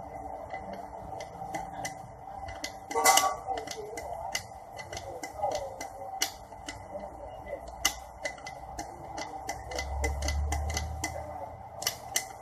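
Metal gearbox parts and hand tools clicking and clinking as they are handled, with one louder clank about three seconds in.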